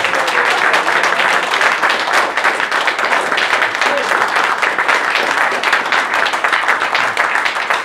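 Audience applauding, with dense, steady clapping from many hands.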